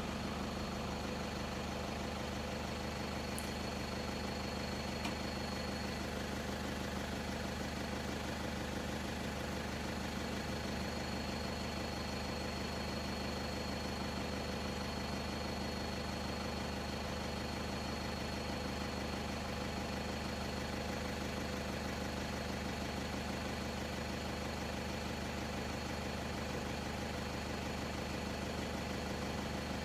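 Vehicle engine idling steadily, an even low hum with a faint high steady tone over it.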